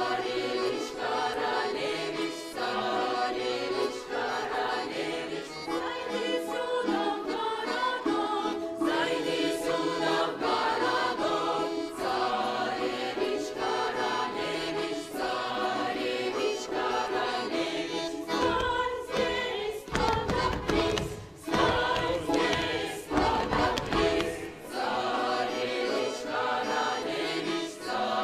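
A folk choir of men's and women's voices singing a Russian folk song together. About two-thirds of the way through there are several seconds of low thumps under the singing.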